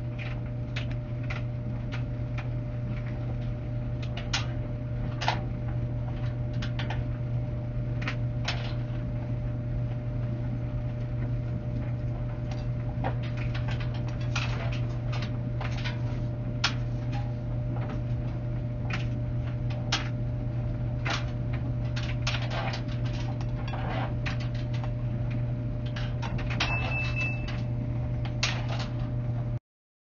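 Samsung front-loading clothes dryer running: a steady low hum with irregular clicks and light taps over it. A short high beep sounds near the end, and the sound cuts off just before the close.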